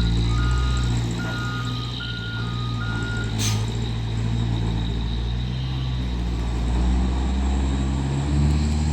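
Nissan truck's diesel engine running, its pitch rising and falling, with a telolet horn sounding two alternating tones over and over for the first three seconds. A single sharp click comes about three and a half seconds in.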